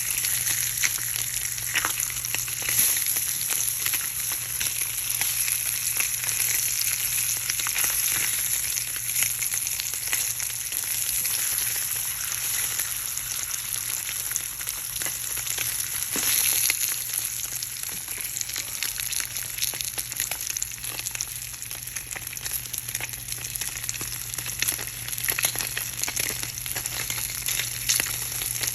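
Food frying in hot oil in a pan, a steady sizzle with dense crackling and popping throughout.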